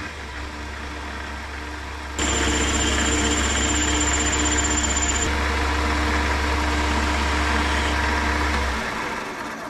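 Chester metal lathe running, with a facing cut on a bar: about two seconds in the tool bites and a louder cutting hiss joins the motor hum, with a thin high whine for a few seconds. The lathe stops near the end.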